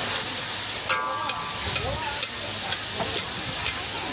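Shrimp sizzling in a hot steel wok while a metal spatula stirs and scrapes them, with sharp metallic clinks of the spatula against the wok. One clink about a second in rings briefly.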